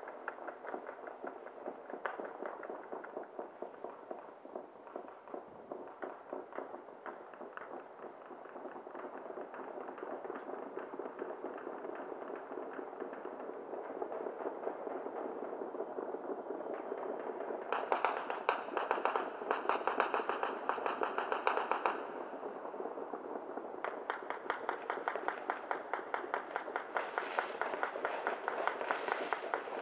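Fireworks and firecrackers crackling in dense, rapid strings of pops, with no let-up. The popping grows louder and thicker a little past halfway, eases briefly, then picks up again near the end.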